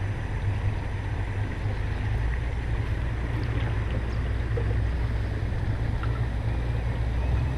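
Small boat's motor running steadily with a continuous low rumble, with the rush of water and air around it.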